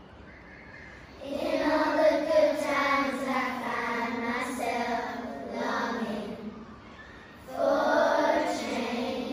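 Children's school choir singing, starting about a second in, with a short pause before a final phrase near the end.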